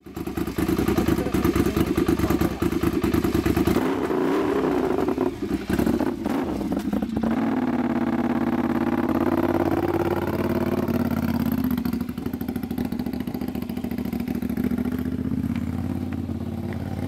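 Motorcycle engine idling steadily with rapid, even firing pulses, with a few clattering knocks about four to seven seconds in.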